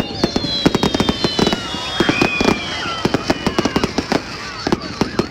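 Fireworks going off: a rapid, continuous run of bangs and crackles, with several high whistles slowly falling in pitch over them.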